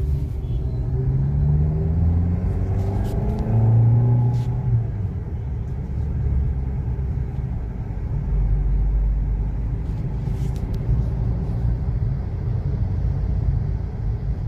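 Maruti Ignis's 1.2-litre four-cylinder petrol engine and road rumble heard from inside the cabin while driving. The engine note rises over the first few seconds as the car accelerates, then settles to a steady low drone.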